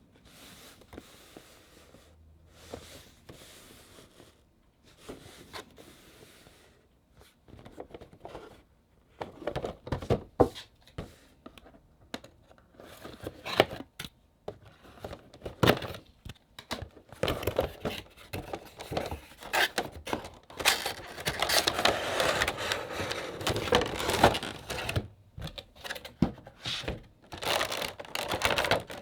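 Funko Pop box packaging being handled and opened: a few light taps and scrapes at first, then from about nine seconds in a long run of crinkling, rustling and tearing as the figure is unpacked.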